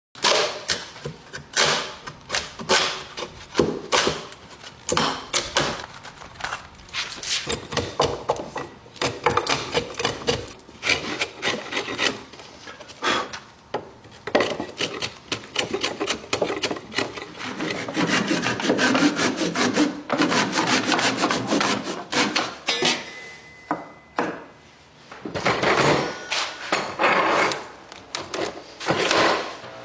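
Hand tools working wood: a long run of irregular scraping and rubbing strokes, with sharper knocks among them.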